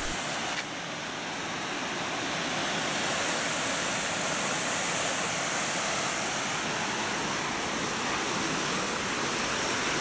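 Steady rushing of a mountain stream spilling over small rock cascades into pools, at its usual gentle flow.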